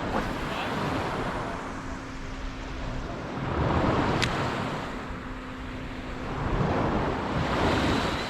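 Surf washing up on the beach, the wash swelling twice, with wind on the microphone and one sharp click about four seconds in.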